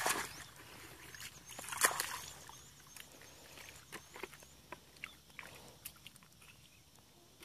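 Muddy water sloshing and splashing as a plastic bucket is dipped and emptied: a loud slosh at the start and another about two seconds in. Then smaller splashes and squelches follow as hands feel through shallow mud and water. A faint series of high chirps repeats for a couple of seconds early on.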